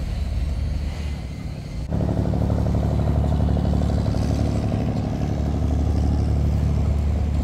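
An engine running steadily at a constant speed. About two seconds in it suddenly gets louder, with a clear, even hum.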